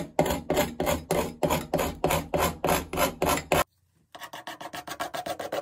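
Stiff metal putty knife scraping crosshatch lines into old, dusty cementitious wall backing, to rough up the surface and loosen flaky material. Even strokes about four a second, then a short break about three and a half seconds in, then lighter, quicker strokes.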